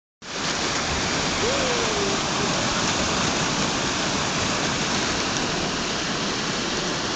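Small sea waves washing over sand and around black basalt rocks at the shoreline, a steady rush of moving seawater.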